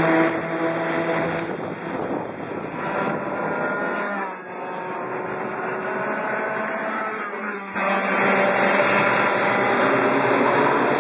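Several two-stroke racing kart engines running at high revs as the karts pass on the circuit, their pitch sliding down and up as they brake and accelerate through corners. The sound drops off about four seconds in and comes back louder near eight seconds.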